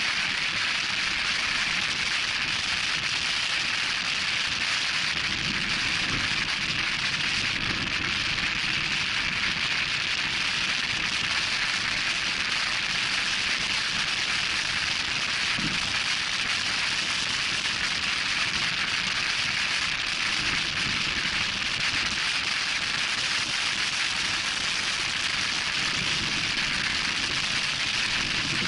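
Loud wind noise rushing over the microphone of a vehicle driving fast on an off-road trail: a steady, unbroken hiss.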